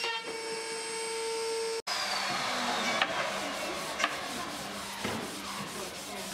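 Motor of an edge-band trimming machine running with a steady hum. It cuts off abruptly under two seconds in, giving way to wooden boards being handled on a table, with sharp knocks about three and four seconds in and a softer one near five.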